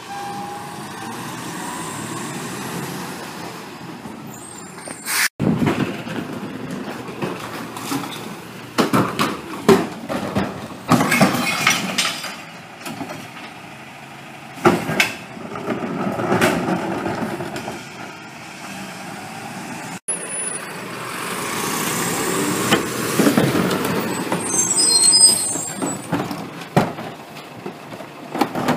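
A CNG Mack/McNeilus rear-loader garbage truck running at the curb while recyclables are tipped from wheeled bins into its hopper, bottles and cans clattering and knocking as they land. A brief high squeal comes near the end.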